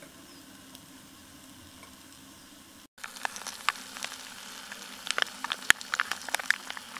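Faint steady background for about three seconds, then food frying in a pan: sausages and sauced meatballs sizzling, with many sharp pops and crackles.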